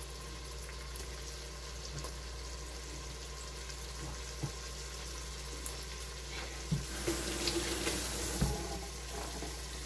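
Chopped tomato sizzling in a pot of browned onion and garlic, a steady frying hiss that gets louder from about seven seconds in, with a few light knocks.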